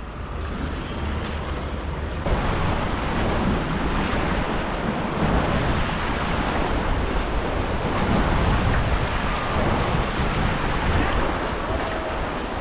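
Rushing whitewater of a river rapid under a raft, a steady roar of water with wind buffeting the microphone. The noise steps up about two seconds in.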